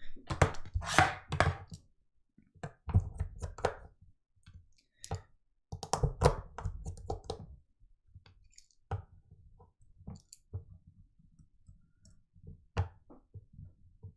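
Small clicks, taps and light scraping of phone parts and hand tools being handled on a workbench during an iPhone 8 repair, in clusters during the first half and as scattered single clicks after.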